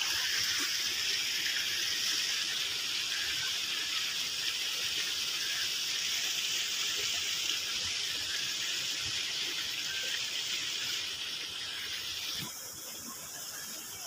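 Shallow water running over grass and mud, a steady rushing hiss that turns a little quieter about twelve seconds in.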